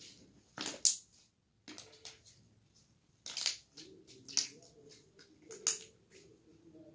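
Slime being squeezed and worked in the hands, giving a series of sharp wet pops and clicks as air pockets in it burst.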